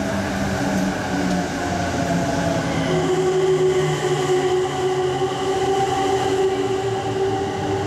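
JR East E257 series limited express electric train passing at reduced speed because of snow: a steady rumble of the cars going by, with humming tones that slowly fall in pitch and a higher steady tone joining about three seconds in.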